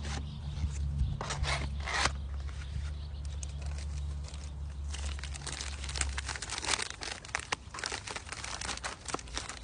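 Plastic MRE packaging being torn and crinkled by hand while a flameless ration heater is opened and set up: a couple of short tearing rasps, then a stretch of dense crinkling. A low steady hum underneath stops about two-thirds of the way through.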